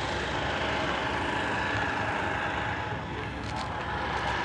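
Steady outdoor background noise with a low rumble, and a few faint clicks about three and a half seconds in.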